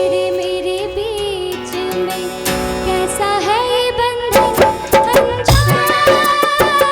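Hindi film song music: a melody line wavers over held notes, then a drum rhythm comes in about four seconds in.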